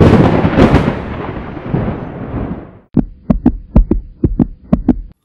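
Intro sound effects: a booming hit that fades out over about three seconds, then a fast run of punchy drum-like thumps, about four a second.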